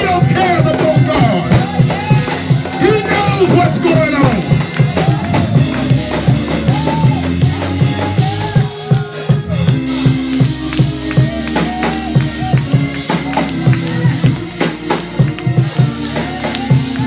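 Upbeat gospel praise music: a drum kit and tambourine keeping a steady driving beat, with a man's voice over it through the church's microphone and speakers.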